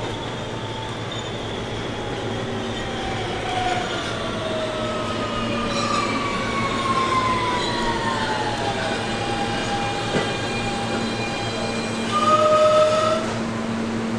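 New York City subway train pulling into a station, its motors whining in tones that fall in pitch as it brakes, over a steady rumble. A short horn note sounds near the end.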